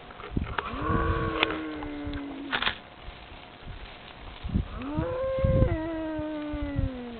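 Cattle mooing: two long, drawn-out moos, the second one longer and dropping in pitch as it ends.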